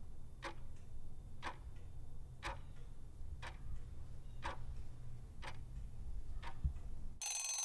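Quiz countdown timer sound effect ticking about once a second over a low steady hum, then a loud ringing alarm tone near the end as the time runs out.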